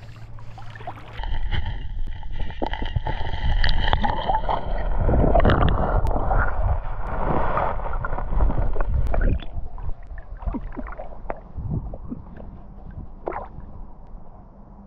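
Lake water gurgling and sloshing around a camera dipped into shallow water. A muffled underwater rumble runs from about a second in until past the middle, then there are lighter, quieter splashes near the end.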